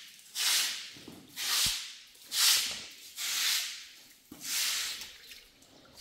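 Straw hand broom sweeping a wet concrete floor: swishing strokes, about one a second.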